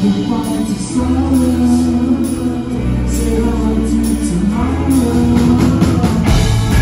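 Live rock band playing a song: electric guitar, bass guitar and drums, with a sung lead vocal, recorded from the audience.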